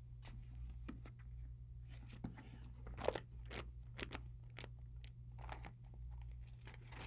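Soft, irregular paper crackles and rustles as the pages of a book are turned, over a steady low electrical hum.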